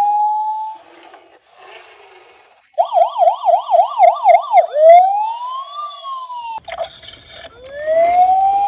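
Toy police car's electronic siren: a rising wail held high that fades out, then a fast up-and-down yelp about four times a second, a single slower rise and fall, and after a short break another rising wail near the end.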